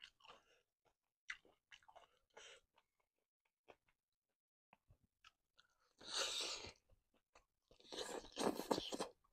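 Close-miked eating of a large piece of cuttlefish in wet sambal: soft, sticky clicks at first, then two louder stretches of biting and chewing, about six seconds in and near the end.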